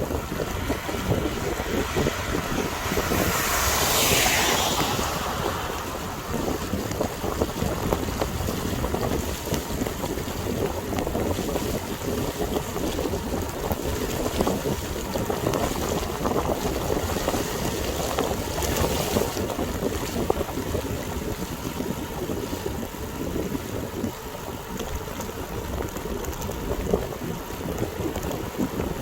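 Wind buffeting the microphone over the steady hiss of heavy rain. A louder hiss swells and fades about four seconds in.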